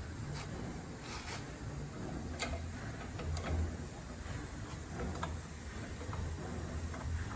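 Light metallic clicks and ticks of hand tools at irregular intervals as a washer is pressed into a truck disc brake caliper with a fitting tool and spanner, over a faint low hum.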